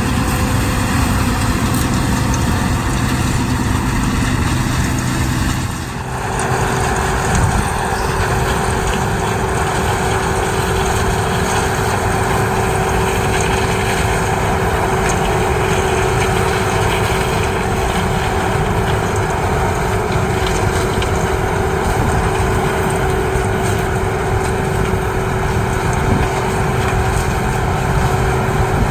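CLAAS Mega 204 combine harvester running steadily as it works. About six seconds in the sound dips briefly, then settles into a steadier running sound with a clear whine under it.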